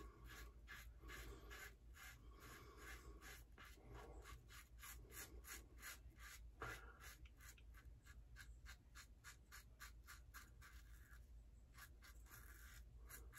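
Faint scratching of a 3D-printed double-edge safety razor cutting stubble through shaving lather, in short quick strokes, several a second, with a brief lull near the end.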